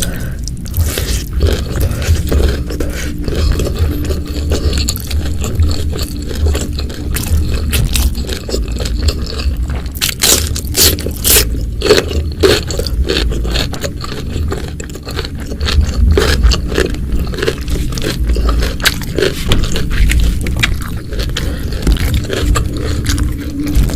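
Close-miked chewing and crunching of food, a steady run of sharp crunches and clicks, loudest in a cluster about halfway through.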